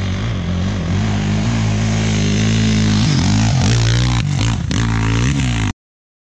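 Dirt bike engine running at a steady pitch, then revving up and down several times from about three seconds in; the sound cuts off suddenly near the end.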